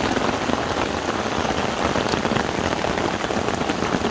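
Heavy rain falling steadily on an umbrella overhead and on a lake surface, with many separate drops striking the umbrella fabric close by.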